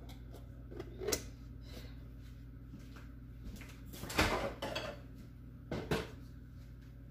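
Kitchen handling noise over a steady low hum: a light knock about a second in, a louder cluster of knocks and clatter around four seconds in, and another knock near six seconds, like a cupboard or drawer being worked.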